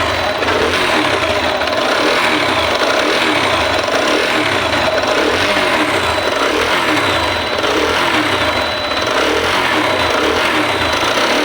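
TVS Apache BS6 2V single-cylinder engine running, with an engine noise that sounds like valve noise but, according to the mechanic, is not. The uploader puts the fault down to the camshaft, not the cylinder.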